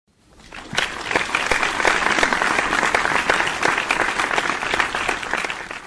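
Applause: many hands clapping together. It swells up over the first second, stays loud, then dies away near the end.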